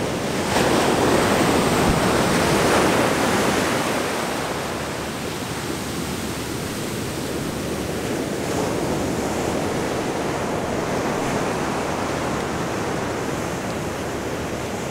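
Ocean surf breaking and washing up the beach, loudest over the first few seconds and then a steady, softer rush.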